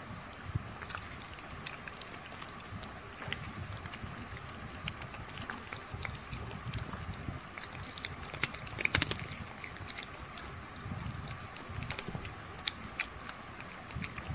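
Two kittens licking and lapping at a chocolate-coated ice cream bar: a run of small wet clicks and smacks, with a brief louder flurry about nine seconds in.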